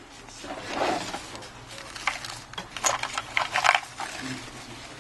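Small clicks and light scrapes of hands and small tools working on an opened iPhone 6, with a soft rustle about a second in and a cluster of sharper ticks between about two and four seconds in.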